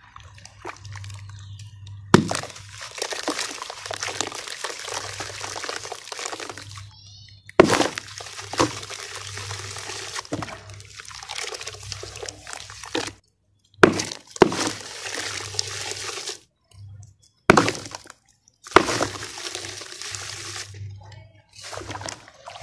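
Hands sloshing and squeezing wet red dirt in a plastic tub of water: long stretches of splashing and churning water. Sudden sharp splashes come about five times through it.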